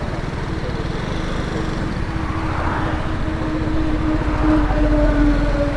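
Single-cylinder motorcycle engines idling side by side, a Hero Xpulse 200 and a BMW G 310 GS, with a fast, even low pulse. A truck approaches on the highway; its drone falls slowly in pitch and grows louder from about four seconds in.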